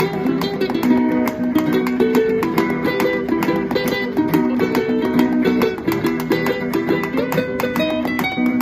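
Instrumental Latin-style passage on acoustic guitar and ukulele: fast strumming and quick plucked melody notes, over sharp, rapid percussive taps on a tea-bowl (chawan) drum kit.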